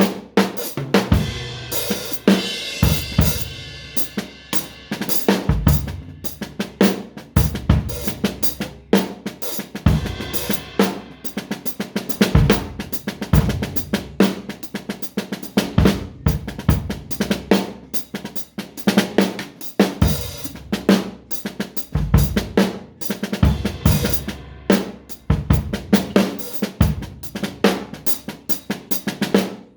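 Acoustic drum kit being played: a busy stream of snare and bass-drum hits with cymbals and hi-hat, several strikes a second.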